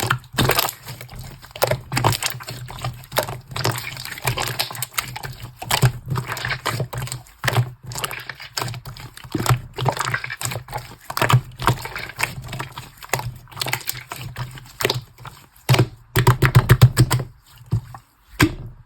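Hands squishing and pressing slime, giving irregular sticky clicks and wet squelches, with a quick run of crackling clicks near the end.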